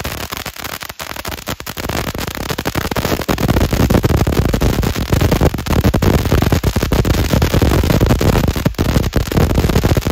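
Two firework fountains, TNT La Calaca and Phantom Flaring Stars, spraying sparks with a steady hiss and dense crackling pops, getting louder about three seconds in.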